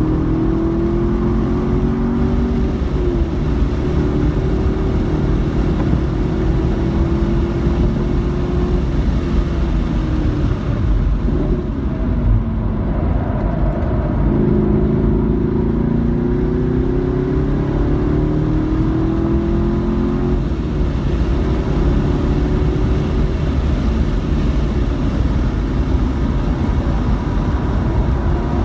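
Car engine at full throttle on a track lap, heard from inside the cabin. It climbs in pitch in repeated rising sweeps as it pulls through the gears, and drops off under braking about ten to twelve seconds in. It then revs up again through the gears, over a steady rush of tyre and wind noise.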